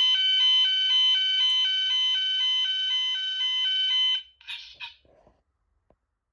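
Fire alarm sounder giving a two-tone alternating alarm, switching between two pitches about twice a second, then cutting off suddenly about four seconds in.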